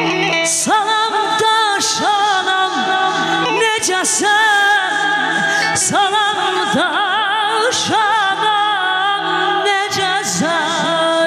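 A woman singing mugham into a microphone, her voice sliding and quavering through ornamented phrases over a steady held accompaniment note.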